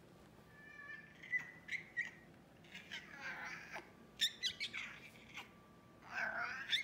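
American Shorthair cat making squeaky chirps and short squeaky meows instead of ordinary meows, the sound he makes when excited to play. A few short high chirps come first, then longer wavering calls, a quick run of squeaks around four seconds in, and a last longer call near the end.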